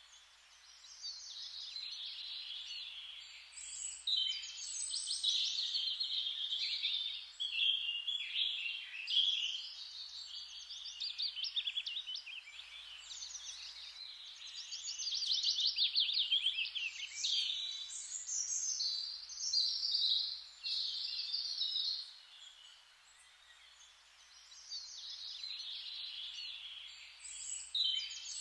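Songbirds singing in quick successive phrases of chirps and fast trills over a faint steady hiss, with a lull of a few seconds late on.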